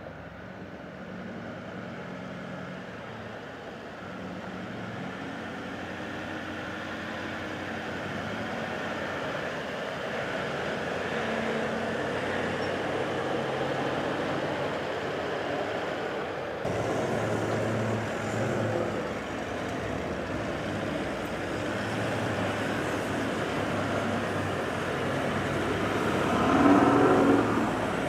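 Four-wheel-drive vehicles driving past on a dirt track, engines running and growing steadily louder as the convoy approaches, loudest near the end.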